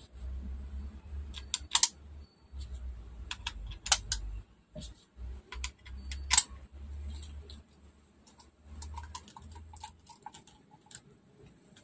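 Scattered sharp clicks and light taps of hard plastic parts as the top cover of a Bose SoundLink Revolve+ speaker is handled and fitted, with low handling rumble in between.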